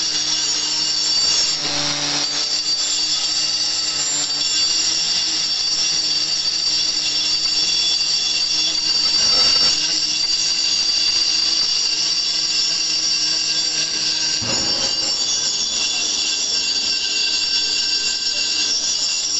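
Pneumatic air chisel hammering on a steel MIG-welded test plate, a steady, loud, high-pitched metallic rattle, as the weld face is cleaned before a break test.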